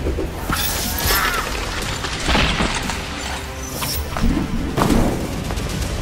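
Added sound effects for an animated sword fight: several sudden crashing impacts a second or so apart, laid over music with a heavy low end.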